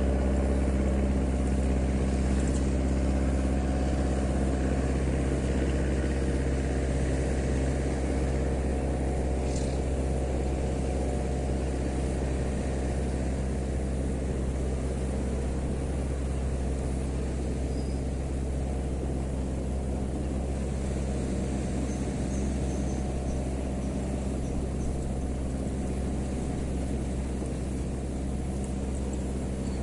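An engine running steadily at an even speed, a low hum that grows slightly quieter.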